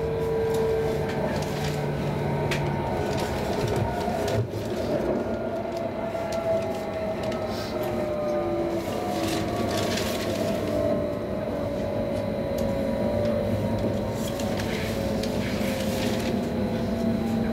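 Cabin sound of a Helsinki Sm5 (Stadler FLIRT) electric commuter train running and slowing as it comes into a station: the traction motor whine falls steadily in pitch over the constant rumble of wheels on rails, with a few light clicks.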